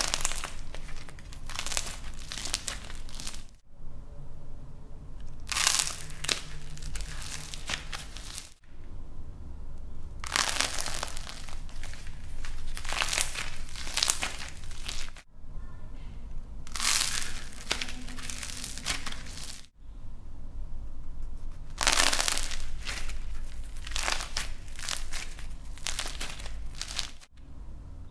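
Hands squeezing and crushing balls of light plasticine with a dried, painted and glitter-coated shell, the shell cracking and crumbling into flakes with crisp crackling. The crackling comes in several stretches of a few seconds each, broken by brief gaps.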